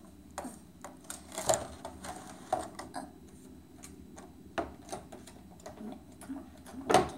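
Packaging of a trading-card box set being pried open by hand: a string of irregular plastic and cardboard clicks and crackles, the loudest snap near the end.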